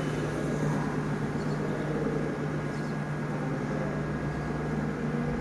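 Room tone: a steady low electrical hum with an even hiss behind it, unchanging throughout.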